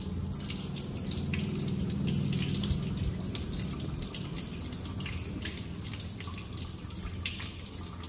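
Kitchen tap running into a stainless-steel sink, the water splashing over hands rinsing a monkey's foot under the stream.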